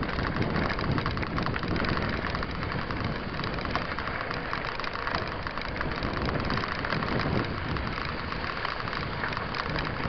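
Mountain bike tyres rolling over a loose gravel dirt road: a steady crunching, rattling crackle with a low rumble underneath.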